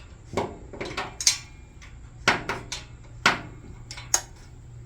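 Irregular metallic clinks and knocks of hand tools and bolts being handled and set down, about nine in all, with the sharpest two in the middle, over a faint steady low hum.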